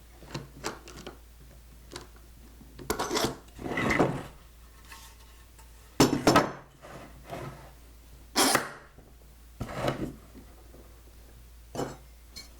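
Speed square and pencil worked against a 2x4 while marking out a mortise: a string of scattered clinks and knocks with a few short scraping strokes.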